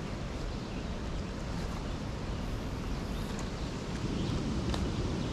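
Steady low rumble of wind on the microphone mixed with water running below a dam, with a couple of faint clicks in the second half.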